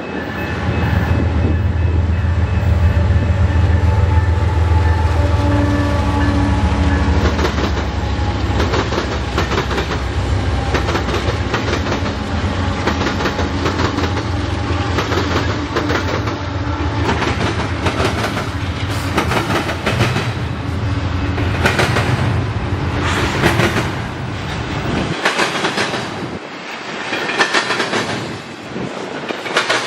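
Union Pacific diesel freight locomotives passing close with a loud, deep engine rumble, followed by double-stack container cars whose wheels clack over the rail joints. The engine rumble drops away about 25 seconds in, leaving the wheel clatter of the cars.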